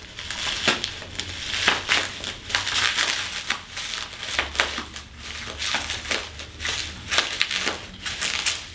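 Bubble wrap crinkling and crackling in irregular rustles as it is cut with scissors and pulled back from a bicycle frame.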